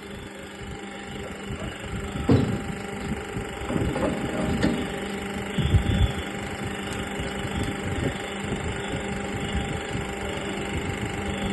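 Drilling machine running: a steady motor hum, with a few irregular knocks and rattles through the middle.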